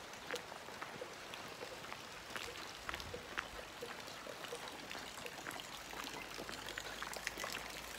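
Light rain falling, with many scattered drops ticking close by.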